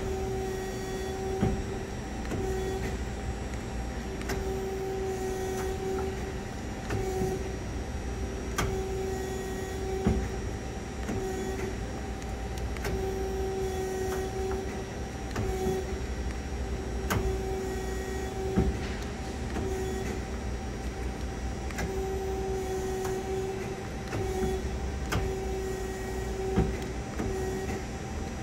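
The electric four-way tool post on a CNC lathe indexing, its motor whining in short runs that stop and start every second or few, with sharp clicks as the turret turns and locks, over a steady low machine hum.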